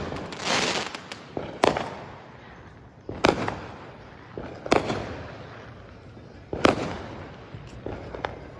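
Fireworks exploding: a crackling hiss in the first second, then four loud bangs a second or two apart, each trailing off, and fainter pops near the end.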